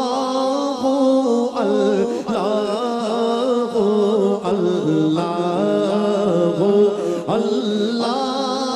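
A man singing an Islamic devotional chant into a microphone, in long wavering, ornamented phrases over steady held tones.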